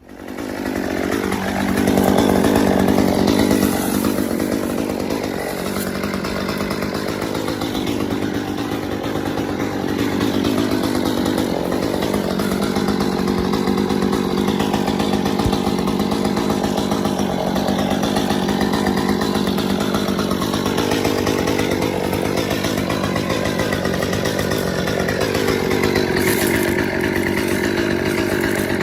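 Chainsaw running and cutting, its engine speed rising and falling.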